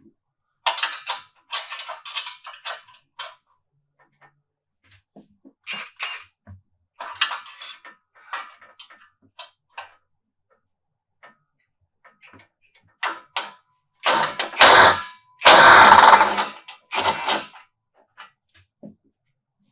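Clicks and clatter of tools and sockets being handled, then a cordless impact wrench hammering in two loud bursts of about a second each, with a shorter burst just after.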